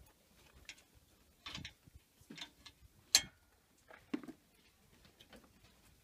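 A series of irregular clicks and crunches, about one a second, the loudest a sharp click about three seconds in.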